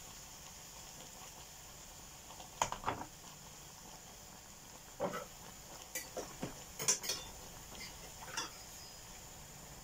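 A few short knocks and clinks of kitchenware being handled, a kettle set down on the worktop among them, spaced irregularly over several seconds after a quiet start.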